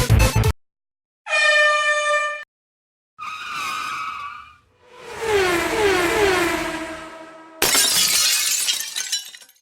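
Dubbed-in car sound effects: a steady horn blast about a second in, a second wavering tone, a longer sound with falling pitch sweeps, then a noisy crash-like burst near the end.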